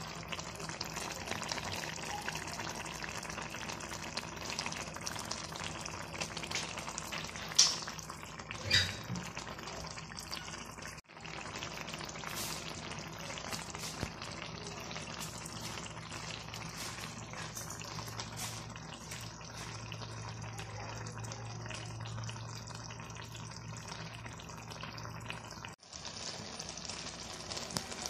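Anchovies in a grated-coconut peera mixture cooking in an earthen clay pot, giving a steady sizzling, bubbling hiss. Two short, louder clacks come about eight and nine seconds in.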